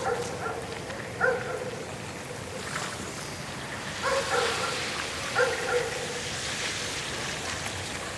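A dog barking several times, in short single barks spaced a second or more apart, over a steady rushing hiss.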